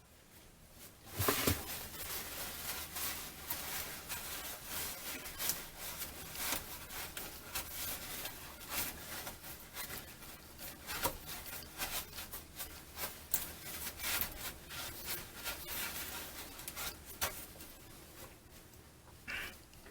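Sandpaper rubbed back and forth by hand on the rusty metal circulator hose connector of a MerCruiser engine, scraping off rust in uneven strokes that start about a second in.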